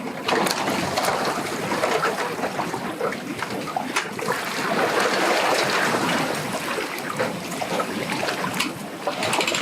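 Wind-driven lake water splashing and lapping, a steady wash of noise broken by small splashes.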